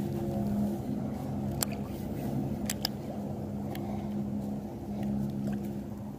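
Steady drone of a distant engine, holding one pitch, with a few sharp clicks about one and a half to three seconds in.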